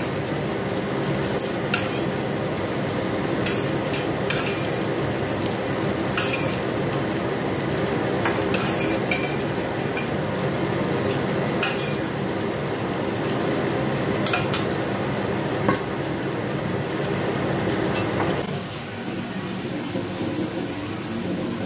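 Stir-fried peppers and mushrooms sizzling in a stainless steel wok while a metal spatula scrapes the pan and clicks against it now and then, scooping the last pieces out. The sizzle drops away suddenly about three-quarters of the way through, leaving a quieter steady background.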